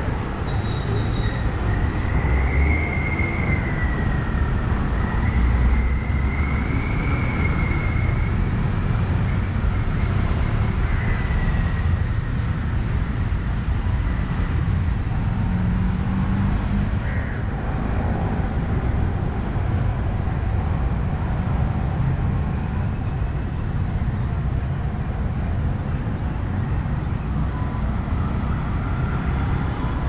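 Street traffic noise: a steady low rumble of passing vehicles, with a faint wavering high tone through roughly the first ten seconds.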